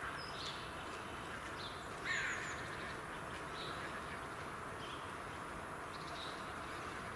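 Steady hiss of outdoor background noise with scattered short, high bird calls from several birds, and one louder, harsher bird call about two seconds in.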